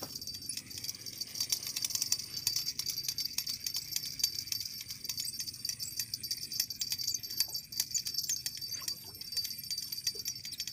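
Spinning reel being cranked fast, a dense, rapid ticking rattle of the reel working as a hooked fish is reeled in.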